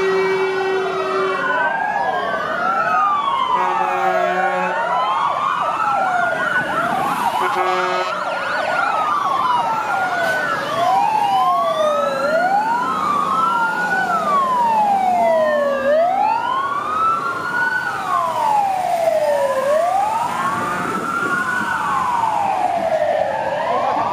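Several fire engine sirens wailing at once, their rising and falling pitches overlapping out of step. A steady horn note sounds three times in the first eight seconds.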